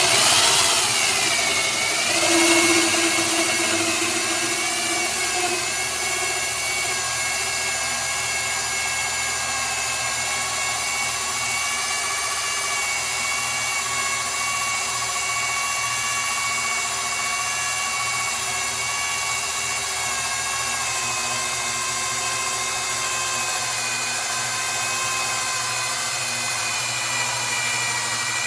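Half-inch DeWalt drill running steadily under load, driving a 5-inch and a 4-inch hole saw together into wood. Its whine sags in pitch and recovers in the first couple of seconds, then holds steady, and it winds down right at the end.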